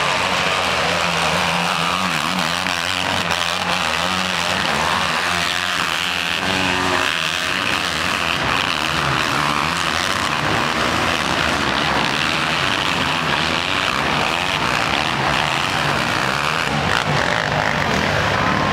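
Racing quad (ATV) engines revving hard on a steep muddy hill climb, the engine pitch rising and falling continuously as the riders work the throttle.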